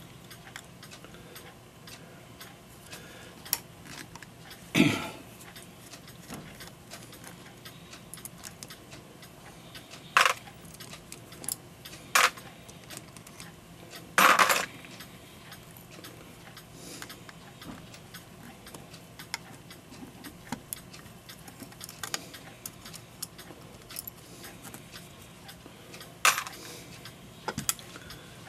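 Small metal clicks and clinks from a brass clock movement and hand tools being handled during disassembly, with a few louder knocks scattered through, the loudest about halfway through.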